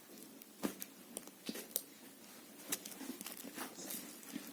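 A few sharp little clicks and light crinkling as a phone display's flex cable is handled and pushed into its hinged connector.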